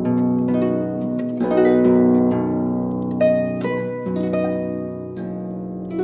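Slow harp music: plucked notes and chords that ring on after each pluck.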